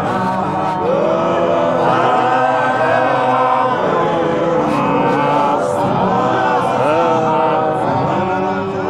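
A group of voices singing a chanted church gospel hymn together, several parts sounding at once.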